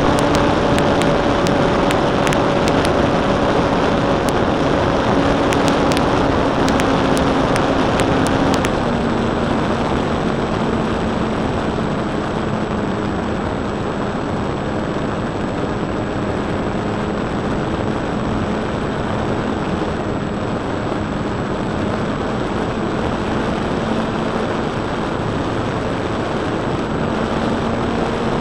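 Electric motor and propeller of an Extra 260 radio-controlled model aeroplane droning, picked up by a small camera taped under the plane, with heavy wind rush over the microphone. The propeller note drops in pitch about eight seconds in as the motor slows, then climbs again near the end.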